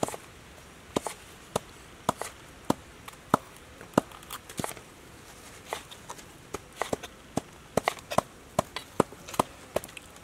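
Knife striking a wooden cutting board as tomatoes are sliced: irregular sharp knocks, two or three a second, with a short pause around the middle.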